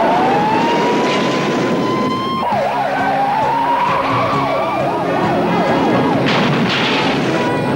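Police car siren: a slow rising wail that switches about two and a half seconds in to a fast up-and-down yelp, about three cycles a second. Two short hissing bursts come near the end.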